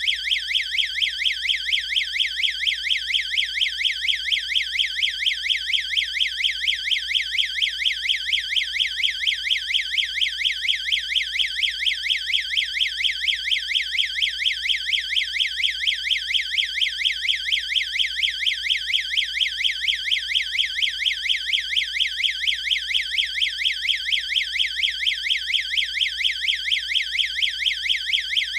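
Electronic strobe-light alarm siren sounding continuously: a loud, high-pitched warbling tone sweeping rapidly up and down, about four times a second.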